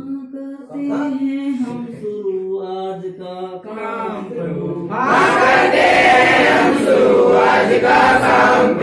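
A single voice chanting a prayer line in held, stepping notes; about five seconds in, a group of children joins in and the prayer is sung together, louder.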